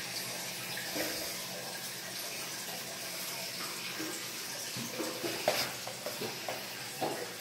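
Aquarium water bubbling and running steadily, with a few brief splashes, the loudest about five and a half seconds in, as fish strike at food on the surface.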